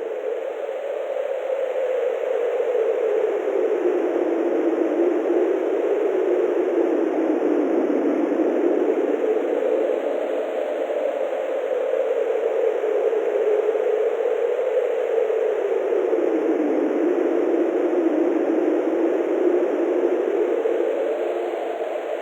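Strong, steady wind: a continuous rushing hiss whose pitch slowly rises and falls.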